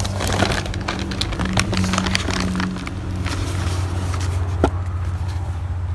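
Plastic bags crinkling and rustling as a bagged hydraulic seal kit is handled, with a sharp click about four and a half seconds in, over a steady low hum.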